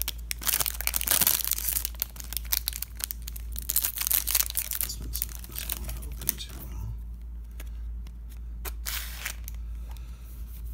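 Foil wrapper of a baseball card pack being torn open and crinkled, in dense crackles for the first six seconds or so, then thinning to a few quieter rustles as the cards come out.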